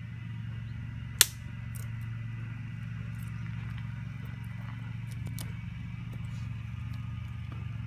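Light clicking and rustling of a dog harness and dry sticks being handled, with one sharp click about a second in, over a steady low hum.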